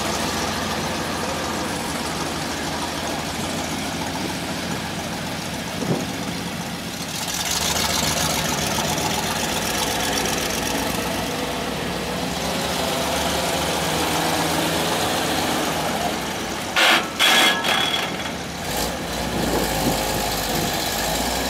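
1959 International R-185 truck's engine running as the truck pulls away and drives slowly off. A few sharp, loud bursts come about three-quarters of the way through.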